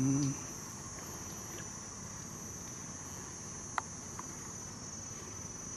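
Steady high-pitched chirring of insects, with a few faint clicks near the middle.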